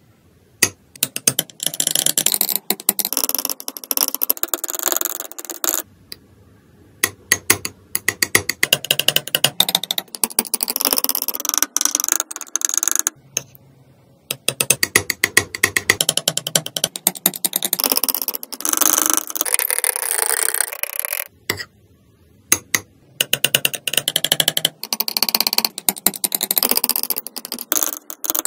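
Metal palette knife stirring and tapping thick paint in a palette well: rapid wet clicking and scraping in runs of several seconds, with short pauses between.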